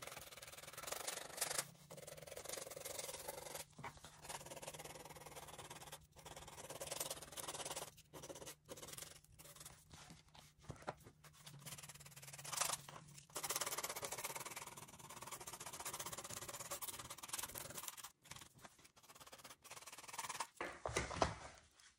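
A hand file rasping back and forth across the sole of a high-heeled shoe, roughening the traced area so an adhesive heel pad will stick. The filing stops briefly now and then and starts again.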